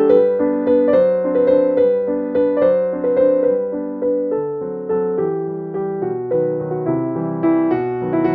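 Background piano music: a gentle melody of struck notes, each fading before the next, at an even pace.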